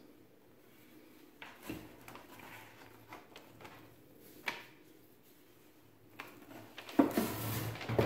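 Rear amplifier panel of a KRK Rokit 6 powered monitor being pried off its cabinet and lifted out: scattered scrapes and light knocks, a sharp click about four and a half seconds in, then louder handling noise near the end.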